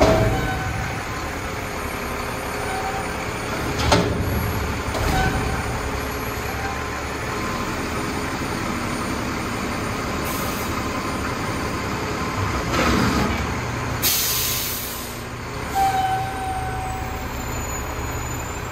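Mack TerraPro front-loader garbage truck's diesel engine running as the truck pulls back from the dumpster, with a metallic clunk about 4 seconds in and another around 13 seconds. Near the end, a short burst of air-brake hiss.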